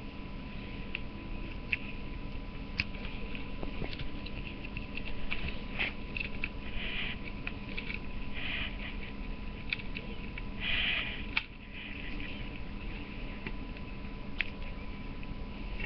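Hand-held carving knife working wood: scattered light clicks and nicks with a few short scraping strokes as it shaves the grain, over a steady low hum.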